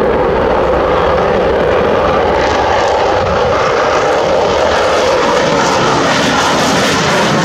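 Sukhoi Su-57 fighter's twin jet engines at high power during a takeoff climb: a loud, steady roar that grows brighter and hissier from about two seconds in.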